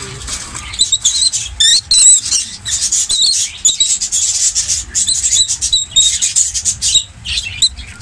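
Rosy-faced lovebirds giving rapid, shrill chirps and squeaks, a dense run of short high calls starting about a second in, with scratchy clicks mixed in.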